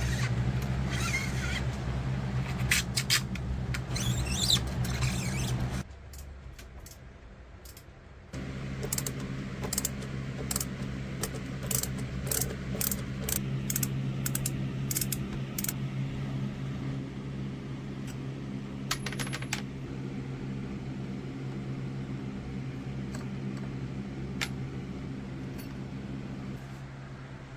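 A steady electric motor hum that stops about six seconds in and starts again about two seconds later, with scattered light metallic clinks and taps over it.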